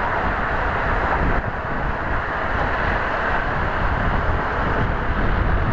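Steady wind rush over the microphone mixed with engine and road noise from a Hero XPulse 200 4V motorcycle on the move.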